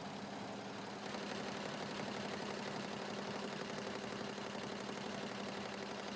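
A 20-head industrial embroidery machine running, a steady mechanical hum with a dense, even clatter from the needles, a little louder from about a second in.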